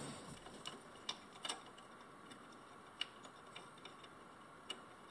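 A handful of faint, irregular light clicks of metal bolts and nuts being handled and threaded by hand while a pressure washer pump is fastened back onto the engine. The clearest clicks come about a second in, at three seconds and near the end.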